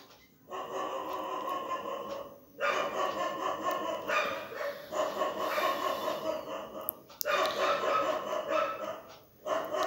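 A dog barking in long runs of a few seconds, with short breaks between them.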